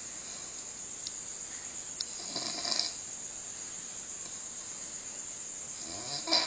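A man snoring in his sleep: two snores, one a couple of seconds in and another near the end, with a steady faint hiss between them.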